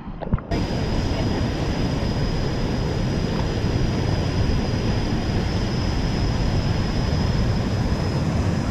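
Rushing river water, a steady dense roar that starts abruptly about half a second in, with a faint steady high whine above it.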